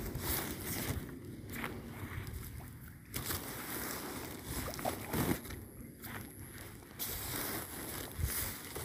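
Wind buffeting the microphone outdoors: a rough low rumble that comes and goes in gusts, with a few faint knocks.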